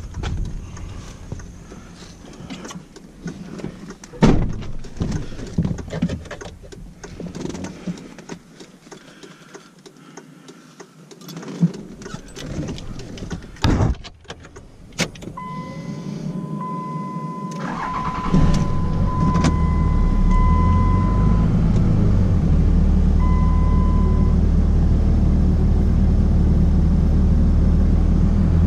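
Scattered knocks and clatter of metal scrap being handled, then an on-and-off beeping chime, and a vehicle engine starting about eighteen seconds in and running steadily.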